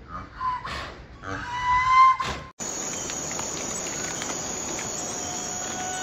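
A few short pitched animal calls, one sliding upward and loudest, break off suddenly about two and a half seconds in. A bush cricket's steady, high-pitched stridulation with a hiss then runs on without a break.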